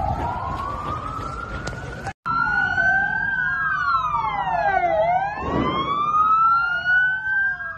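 Several emergency vehicle sirens wailing at once, each sweeping slowly up and down in pitch and overlapping out of step. The sound cuts out for an instant about two seconds in.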